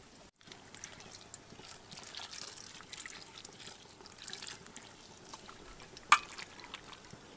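Water poured from a plastic jug into a steel bowl of peeled pulla vegetables, then hands sloshing and rubbing the vegetables in the water to wash them. One sharp click about six seconds in.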